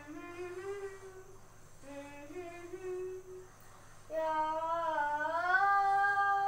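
A boy humming a melody unaccompanied: two short phrases, then, about four seconds in, a louder long held note that slides upward.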